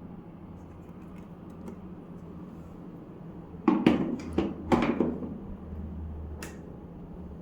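A quick run of four or five clicks and knocks about four seconds in, and a single click near the end, over a steady low hum.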